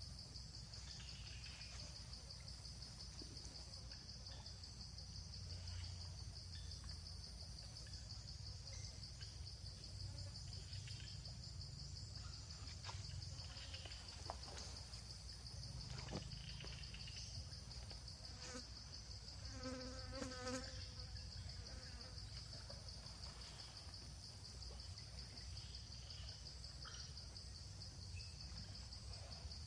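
Insects buzzing steadily in a high, pulsing drone over a low background rumble, with a few faint clicks and a short pitched animal call about two-thirds of the way through.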